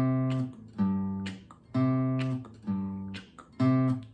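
Acoustic guitar bass notes plucked with a thumbpick on the fifth and sixth strings under an open C7 chord, alternating between two low pitches. Each note is struck about once a second and rings down before the next.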